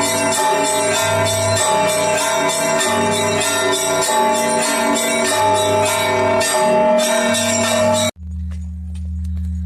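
Russian church bells rung together: a rapid, dense clanging of smaller bells over the steady hum of large bells. About eight seconds in the clanging cuts off abruptly, leaving only the low hum of a large bell.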